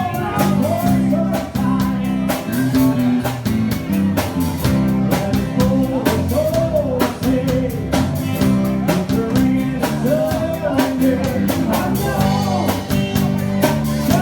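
A band playing a rock cover song: a singer's voice over guitar and drum kit, with a steady beat.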